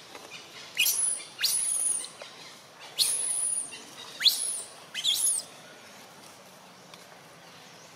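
Baby long-tailed macaque giving about five short, very high-pitched calls, each sweeping sharply up in pitch and then falling away; they stop a little past halfway through.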